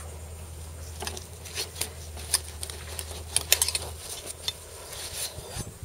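Kitchen knives being handled and laid out: scattered light clicks and clinks of steel blades, over a low hum that stops about four seconds in.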